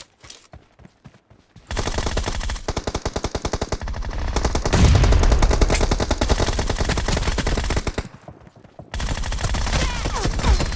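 Video-game automatic gunfire: a long rapid burst of rifle fire for about six seconds, heavier and deeper around the middle, then a short pause and a second burst near the end.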